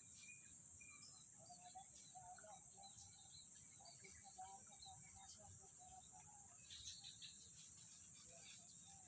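Faint wild ambience: a steady high-pitched insect drone, with short bird chirps scattered through it.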